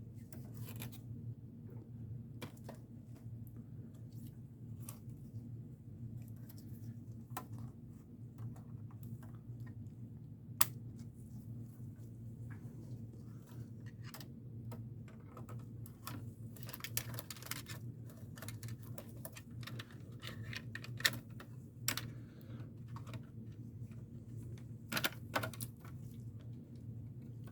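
Scattered, irregular light clicks and taps from hands working on computer parts and screws, with a few sharper clicks, over a steady low hum.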